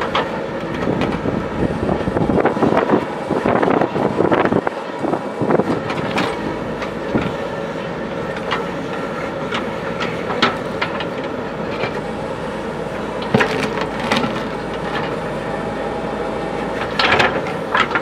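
JCB backhoe loader's diesel engine running steadily, with irregular rattling, clanks and knocks from the machine at work. The clatter is busiest in the first few seconds, with single sharp knocks later on.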